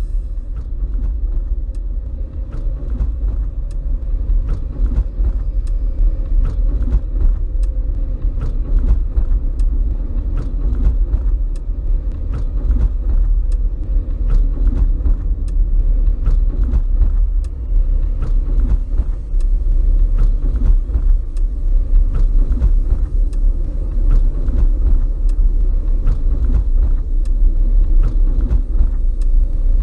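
A deep, continuous rumble with faint clicks at a regular pace running through it, part of an experimental ambient soundtrack; a faint high hiss joins about halfway through.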